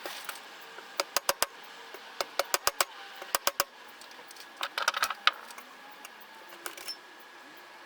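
Sharp metallic clicks and clinks in quick little groups, the sound of small metal parts and tools being handled during hand disassembly of a cordless impact driver.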